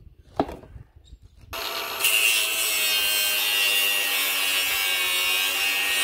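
A couple of light knocks, then about one and a half seconds in an angle grinder starts up and cuts into a strip of steel garden edging with a steady high-pitched whine.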